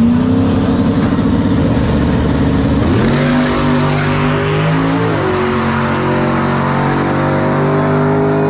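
Drag-racing engines launching off the line and accelerating hard down the strip, a pickup truck among them. The engine note climbs sharply at the launch, holds, then steps up again twice as they pull away.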